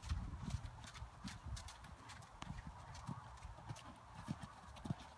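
Hoofbeats of horses trotting on a sand arena: soft, irregular low thuds.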